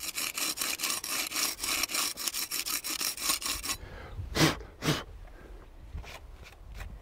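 Fast, even rasping scrape, about eight strokes a second, which stops about four seconds in; two short louder scrapes follow.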